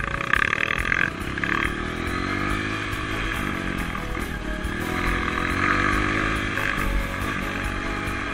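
Dirt bike engine running under way, its pitch rising and falling as the throttle is worked.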